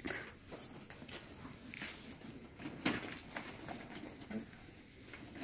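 Irregular rustling and light clicks of handling: a tame mink shifting against a jacket and being set down on straw at a wire cage, with one sharper click about three seconds in.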